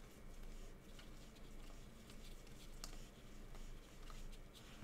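Faint light clicks and rustling of trading cards being handled and flipped through.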